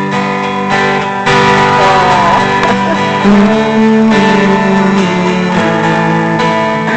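Live band music led by strummed acoustic guitar, an instrumental passage between sung lines; it gets louder about a second in.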